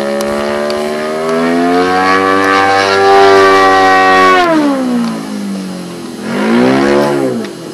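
YS 140 model aircraft glow engine running steadily, then throttled up to a higher pitch that it holds for a couple of seconds before dropping back down. Near the end it is blipped up and down once more in a quick rev.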